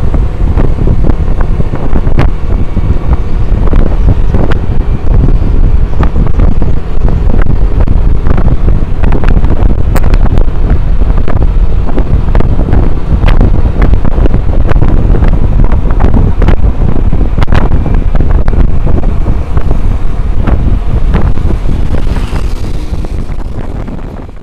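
Heavy wind buffeting on the microphone of a camera riding on a moving Yamaha scooter, with the scooter's running engine and road noise underneath. It fades out over the last two seconds or so.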